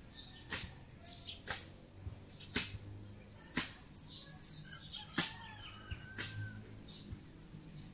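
Grass and weeds being slashed by hand with a blade: six short, sharp strokes roughly a second apart. Small birds chirp, with a quick run of about six high, falling chirps in the middle.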